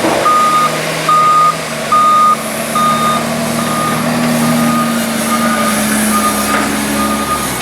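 Reversing alarm of a JCB 414S wheel loader beeping steadily a little faster than once a second, growing fainter toward the end, over the loader's diesel engine, which climbs in pitch partway through as it works and eases off near the end.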